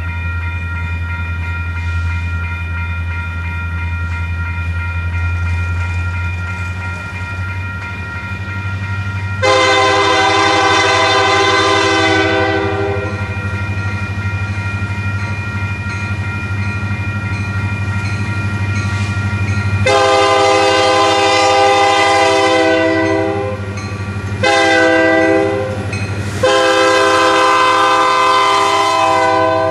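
Union Pacific diesel locomotive leading a double-stack intermodal train, its engine droning steadily as it passes. Its multi-chime air horn sounds long, long, short, long, the standard signal for a road grade crossing.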